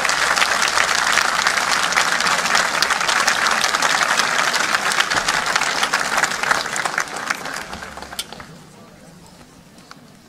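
Large audience applauding, the clapping fading away about eight seconds in.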